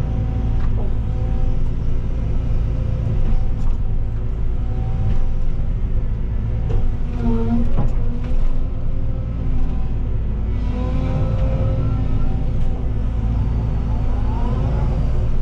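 Cat 313 excavator's diesel engine running steadily under working load, heard from inside the cab, with short hydraulic whines that rise and fall as the boom and bucket move. A few sharp knocks come through, most around the middle.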